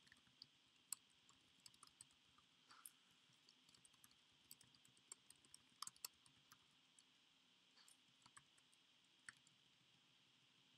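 Faint computer keyboard typing: scattered, irregular keystrokes over a faint steady background hiss.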